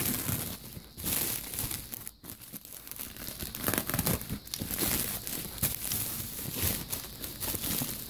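Padded bubble mailer being torn open and handled: a continuous run of crinkling and tearing with many sharp crackles.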